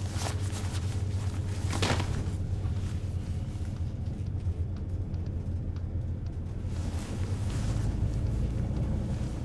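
Cabin sound of a London bus on the move: a steady low engine and road rumble with light rattles, one sharper knock about two seconds in, and the low note dropping about seven seconds in.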